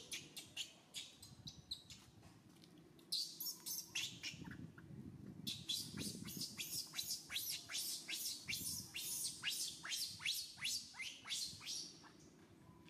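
Baby macaque crying in a rapid series of shrill squeals, each falling steeply in pitch, about three a second, in bouts that grow denser and louder in the second half.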